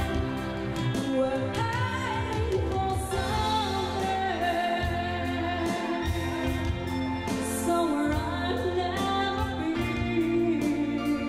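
A female vocalist singing a slow ballad into a microphone over band accompaniment with a steady drum beat, amplified through the hall's speakers.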